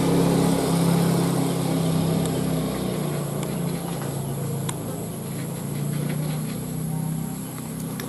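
An engine running with a steady low hum that shifts slightly in pitch and slowly fades, with a few faint short clicks over it.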